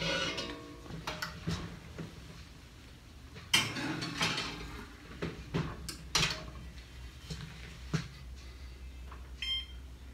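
Cast-iron skillet scraping on the gas range's grates, then several loud clunks and knocks as it goes into the oven and the oven door shuts. Near the end come short electronic beeps from the range's control panel as it is set.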